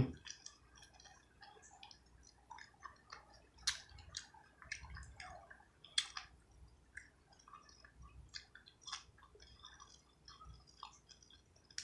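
Chewing a bite of fried rainbow trout fillet: faint wet mouth sounds and scattered small clicks, with two sharper clicks about four and six seconds in.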